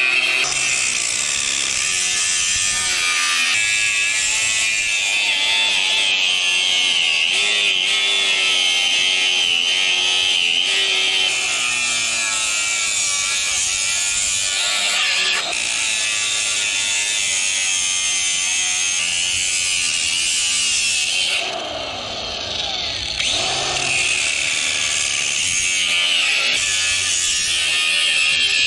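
Electric grinder grinding bits off scrap metal, a continuous high whine whose pitch wavers as it bites under load. About three quarters of the way through it eases off, its pitch dropping, then it picks up and grinds again.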